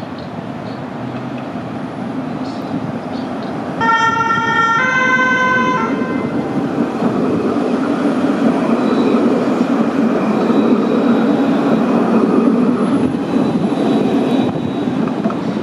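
Coupled low-floor tram rolling past close by on its track, its steady running noise growing louder as it passes. About four seconds in, a loud two-note horn-like tone sounds, one note after the other, each about a second long.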